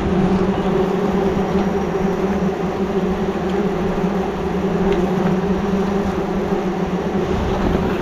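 Swarm of bees buzzing around their opened nest in a loud, steady drone.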